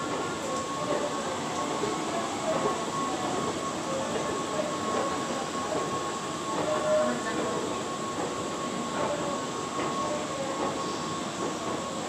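Long escalator running: a steady mechanical rumble and rattle of the moving steps with a constant high whine.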